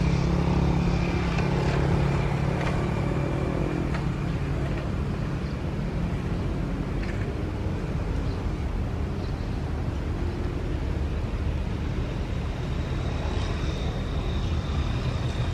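Jet airliner engines at low power, a steady rumble with a faint high whine that grows more noticeable near the end.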